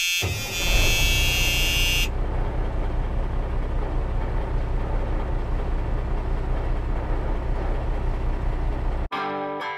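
Kubota KX080-3 excavator's diesel engine running steadily, with a steady high-pitched tone over it for the first two seconds. The engine sound cuts off about nine seconds in and guitar music starts.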